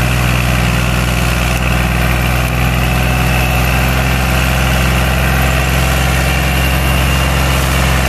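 Al-Ghazi tractor's diesel engine running at a steady speed while hitched to a heavily loaded sugarcane trolley, with a constant, unbroken engine note.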